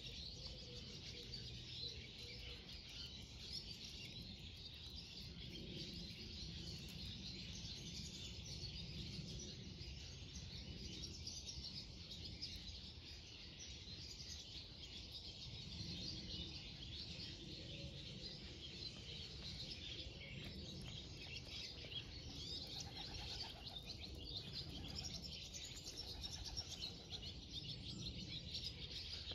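Small birds chirping and singing in a continuous background chorus, with a low steady rumble underneath.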